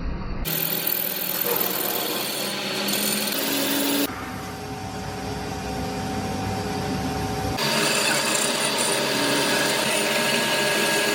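Metalworking power tools in a machine shop cutting or grinding metal, a dense steady noise that changes abruptly twice as separate clips follow one another.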